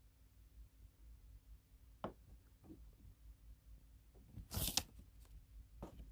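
Quiet room tone with a low steady hum, broken by a few brief rustles and clicks. The loudest is a short rustle about four and a half seconds in.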